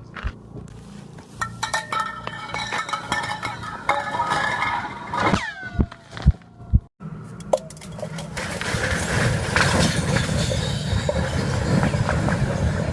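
Chunks of ice falling down a deep borehole in the Antarctic ice, clinking and ringing off its walls, with a pair of falling, laser-like tones about five seconds in. From about eight seconds the clatter thickens into a dense, steady rattle.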